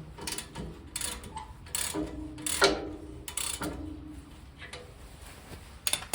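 Steel rototiller blades and tools clanking while being worked on: an irregular series of sharp metal knocks and clinks, several leaving a short ringing tone, the loudest about two and a half seconds in.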